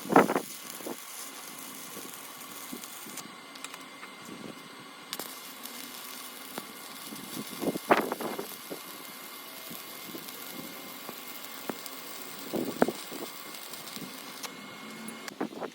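Electric arc welding: a steady hiss and crackle of the arc, with a few louder sharp pops or knocks, one near the start, one about eight seconds in and one about thirteen seconds in.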